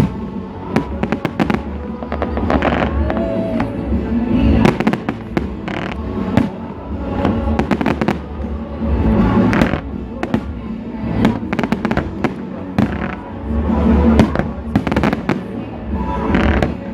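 Fireworks display: shells bursting in quick succession, with sharp bangs and crackles coming thick and fast and heavier rumbling booms arriving in several waves.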